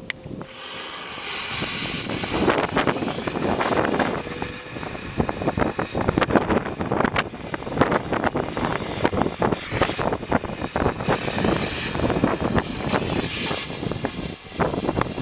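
Cutting torch burning through the steel side of a truck-bed box: a steady hiss with dense, irregular crackling and popping of molten metal, starting about a second in.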